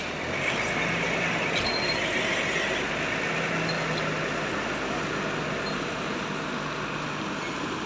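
Large diesel coach buses idling, a steady engine rumble with an even noise over it.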